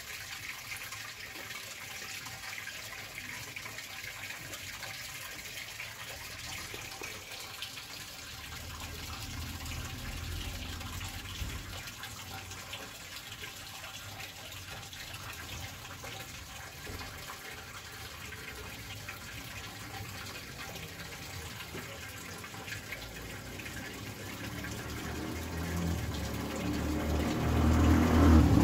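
Distant jet airliner high overhead: a steady rushing roar that swells into a louder low rumble near the end.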